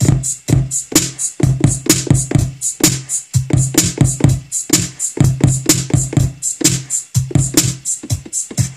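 Electronic drum samples finger-drummed live on a Native Instruments Maschine's pads: kick, snare and hi-hat hits in a quick steady beat, over a looping track with a deep bass note.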